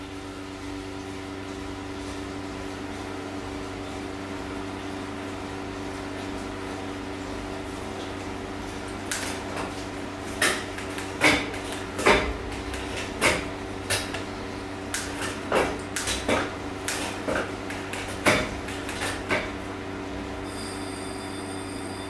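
Wahoo Kickr Headwind smart fan running steadily, a rushing air noise with a low hum of a few steady tones. About halfway through, a run of a dozen or so irregular sharp clicks and knocks starts and stops a few seconds before the end. Near the end a faint high whistle comes in.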